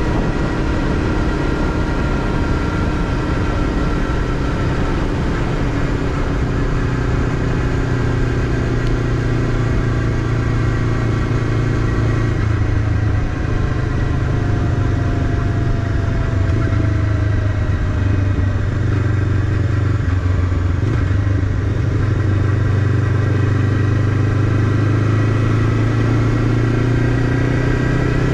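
Honda CBF500's parallel-twin engine running steadily at cruising speed under way, over a steady rush of wind. The engine note shifts lower about twelve seconds in.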